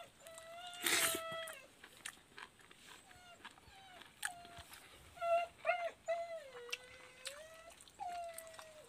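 A dog whining: a string of high-pitched whimpers, some short and some long and wavering, with a brief rasping burst about a second in.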